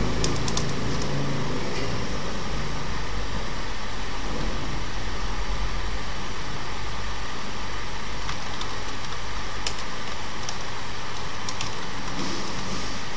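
Steady background hiss and low hum of the recording, with a few sparse clicks of computer keyboard keys being typed.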